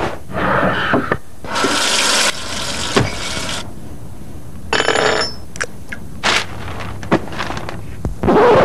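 A string of short sound effects: rushing, water-like noises and several sharp clicks, one after another, over a steady hiss, with no music or speech.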